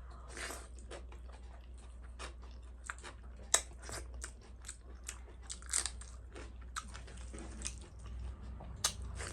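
Close-up chewing and crunching of crisp-fried pork, with many short, irregular crackles and mouth clicks.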